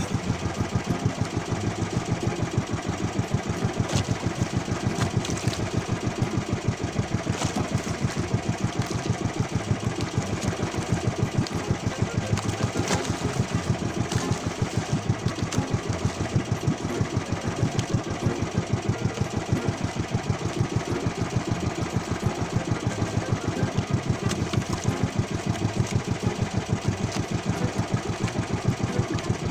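Small fishing boat's engine running steadily with a fast, even chugging beat.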